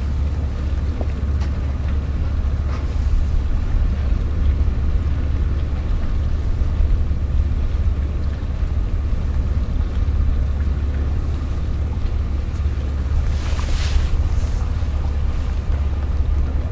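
Harbour ambience dominated by a steady low rumble, with a short hiss about 13 to 14 seconds in.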